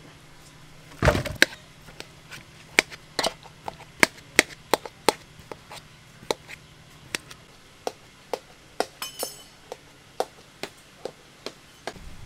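Steamed potato pieces tipped into an aluminium bowl with a loud clattering rush about a second in. A knife then chops them in the bowl, its blade knocking on the bowl bottom in sharp, uneven strokes, about two or three a second.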